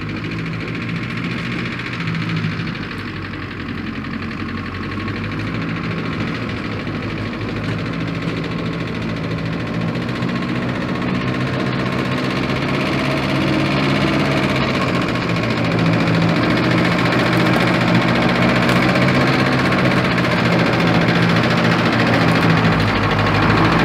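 1950 Land Rover Series 1's four-cylinder petrol engine running steadily at low speed as the vehicle crawls along a rough track towards the listener, growing gradually louder as it approaches.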